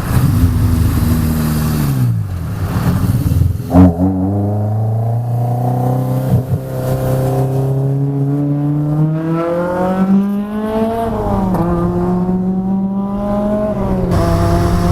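Honda F20C four-cylinder engine breathing through individual throttle bodies, revving as the car is driven hard. The engine note falls at first, with a sharp knock about four seconds in. It then climbs steadily, drops at a shift about eleven and a half seconds in, climbs again and drops once more near the end.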